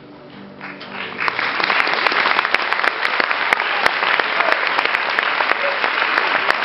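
Audience applause breaking out about a second in and quickly building to steady, dense clapping.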